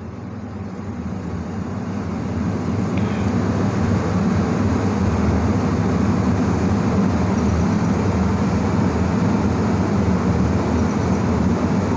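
Low, steady mechanical rumble of a motor or engine that grows louder over the first four seconds and then holds steady.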